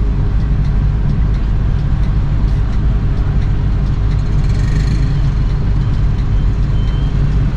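Intercity coach's diesel engine idling steadily, heard from the driver's cabin while the bus stands parked.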